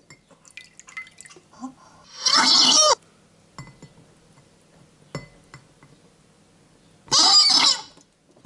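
Rubber chicken squeeze toy squeezed twice with its head held in a glass of water: a loud screech lasting under a second about two seconds in, and again near the end. Faint drips and small water sounds come between the squeezes.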